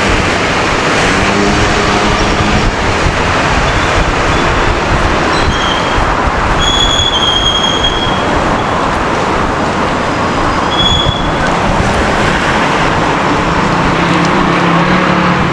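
Steady, loud urban traffic noise, with thin high squeals that come in about six seconds in and again briefly near eleven seconds.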